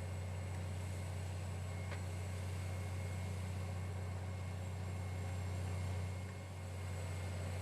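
Steady low drone of road-construction machinery engines running at a work site, with a brief dip in level near the end.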